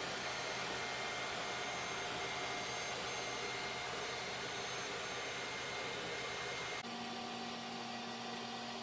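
Steady fan-like whirring with a faint whistle that comes and goes. About seven seconds in it changes abruptly to a slightly quieter whirr with a steady low hum.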